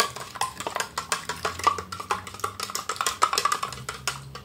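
Spoon stirring strawberry Nesquik into milk in a plastic cup, clicking quickly and steadily against the cup's sides, about six or seven clicks a second.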